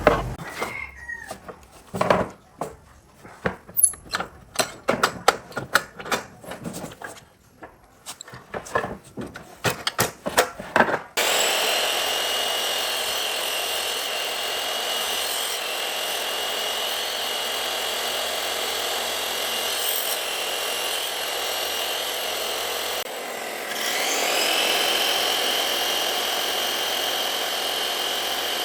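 Irregular knocks and scrapes of hand work on wood for about ten seconds, then an electric power tool running steadily on wood with a high whine. Later it briefly drops off and spins back up.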